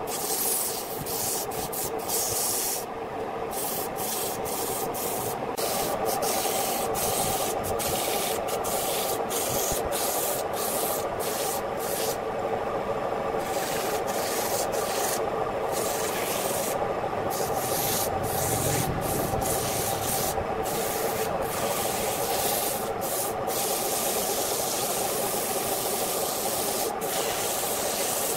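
Sandpaper rubbing against a ribbed wooden vase as it spins on a wood lathe: a steady rasping scratch that breaks off briefly many times. Beneath it runs the lathe's steady hum.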